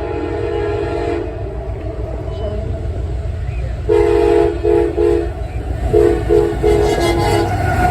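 Locomotive multi-chime air horn sounding a chord over the low rumble of the train: one blast ending about a second in, then after a pause a longer blast followed by two short ones, and after another gap four quick short blasts.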